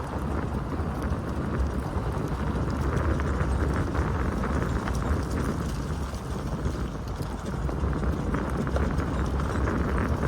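Jeep WJ driving on a gravel road: a steady low rumble with tyres crunching and popping over loose gravel in many small clicks.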